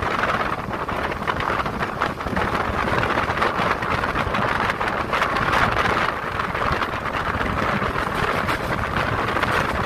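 Moving passenger train heard from an open coach door: steady rumble of the wheels on the rails, with rushing air buffeting the microphone.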